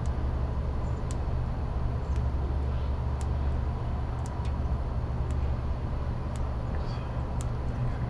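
Steady low outdoor rumble, with faint high ticks about once a second.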